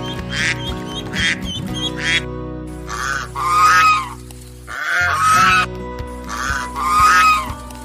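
Waterfowl calling: about half a dozen short, quick calls in the first two seconds, then three longer, louder calls a second or two apart, over background music.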